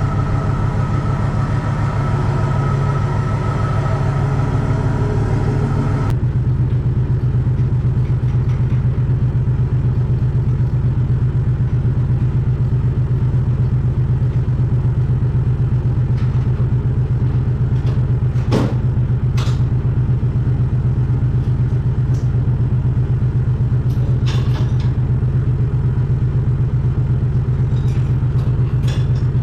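Vehicle engine running steadily, a loud, low, even drone. The sound changes abruptly about six seconds in, and a few short clicks come through over it later on.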